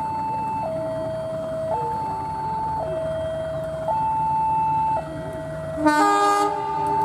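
A level-crossing warning alarm alternates steadily between two tones, switching about once a second, over the low rumble of an approaching diesel locomotive. About six seconds in, the locomotive gives one short, loud horn blast.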